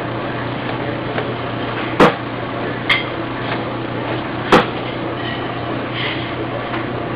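Inkjet bat printer running with a steady mechanical hum. Three sharp knocks come about two, three and four and a half seconds in; the first and last are the loudest.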